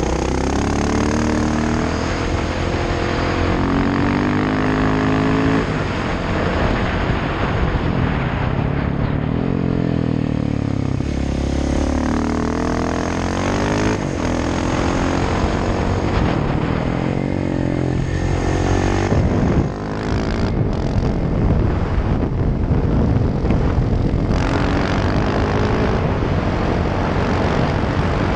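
On-board sound of a KTM 690 SMC R's single-cylinder engine through a Sebring exhaust with the dB-killer removed, revs rising and falling through gear changes and throttle on the bends. The sound drops briefly about twenty seconds in.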